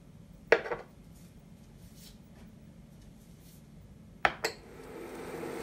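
Ceramic bowls set down on the glass top of an induction cooktop: two sharp clacks, each followed at once by a smaller knock, about half a second in and again near four seconds. Near the end a steady machine hum comes up and grows louder.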